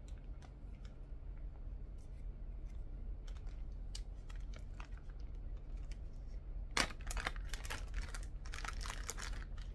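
Packaging and parts being handled during an unboxing: scattered light clicks and rustles, then, about seven seconds in, a denser stretch of crackling and rustling, over a steady low hum.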